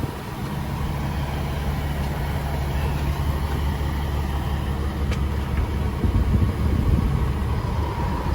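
Truck engine idling with a steady low hum, and a faint click about five seconds in.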